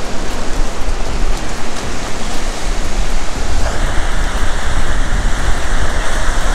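Breaking surf washing up the beach, mixed with wind buffeting the microphone: a steady rushing noise with a fluttering low rumble, growing brighter about four seconds in.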